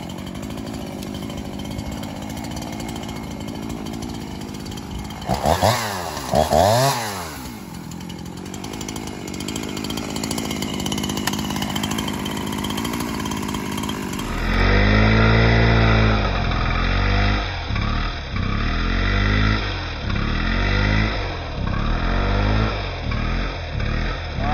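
Husqvarna 350 two-stroke chainsaw running steadily, revved up and back down twice a few seconds in. About halfway through the sound changes to a heavier, louder take in which the saw is revved up and down over and over as branches are cut.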